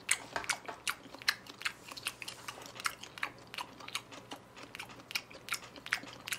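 A person chewing a mouthful of raw beef sashimi (yuk-sashimi), wet mouth clicks and smacks coming about three times a second.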